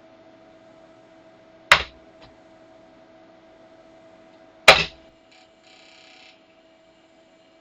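Two sharp, loud knocks about three seconds apart, followed by a brief soft hiss, over a steady low electrical hum.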